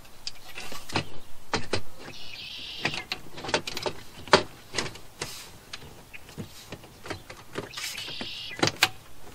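A snap-in window frame being worked into a travel-trailer door by hand: a string of sharp clicks and knocks, with two short scraping rubs of the frame against the door opening, about two seconds in and again about eight seconds in.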